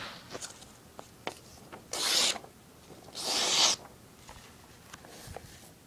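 Two loud rubbing scrapes, each about half a second long and a little over a second apart, with light clicks and taps around them.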